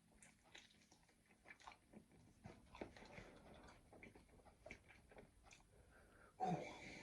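Faint chewing of a thin, crispy pizza base: small irregular crunches and mouth sounds, with a louder breath near the end.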